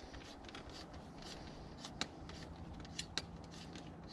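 Faint handling noise of an umbrella pole being fastened by hand: light rustling with scattered small clicks, a few sharper ticks about two and three seconds in.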